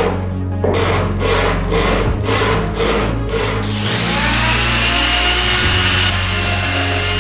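A steel hammer head rubbed back and forth on sandpaper by hand, about two rasping strokes a second. About four seconds in, a handheld rotary tool with a small sanding drum takes over with a steady high whine as it sands the hammer head.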